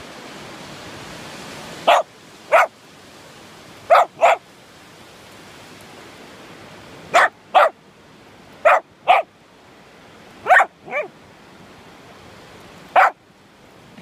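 A corgi barking in short sharp barks, about eleven in all, mostly in quick pairs a few seconds apart, the last one single, over a steady hiss of background noise.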